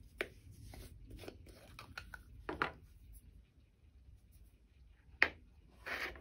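Small clicks, taps and scrapes of a plastic acrylic paint bottle being handled, opened and set down on a cutting mat, with a sharper click about five seconds in and a short scrape just before the end.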